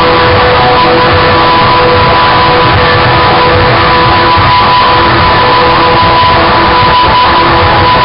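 Loud, dense wall of distorted noise music, unchanging, with steady high drone tones held under the harsh noise.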